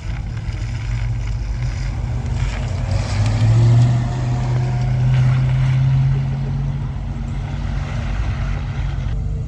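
A car engine running close by, a low hum that swells about three seconds in and again around five to six seconds, over a steady low rumble.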